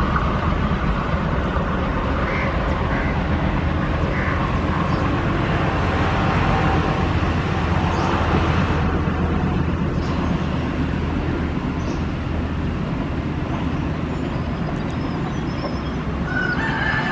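Passenger express train running through a station at speed: a steady rumble and clatter of coach wheels on the rails.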